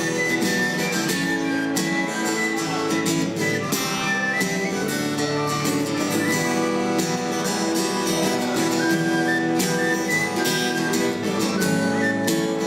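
Instrumental solo break in a live song: a lead melody over strummed acoustic guitar, with no singing.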